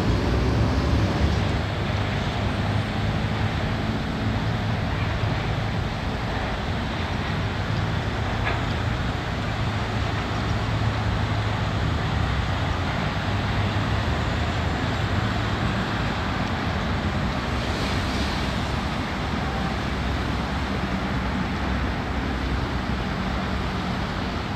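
V8 engine of a Daytona Eliminator 33 powerboat idling at rest, running steadily with a low, even note from its transom exhausts.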